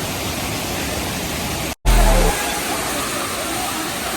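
Steady rushing water of a waterfall. Just under two seconds in the sound cuts out for a split second, then a short, loud low thump lasts about half a second before the rushing water carries on.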